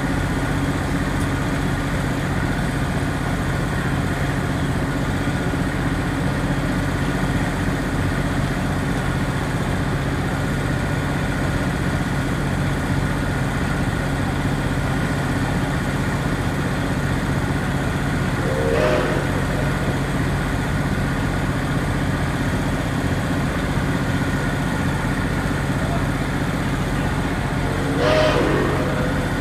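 A steady engine hum with a constant low pitch, like an engine idling. Brief voices break in twice, about 19 and 28 seconds in.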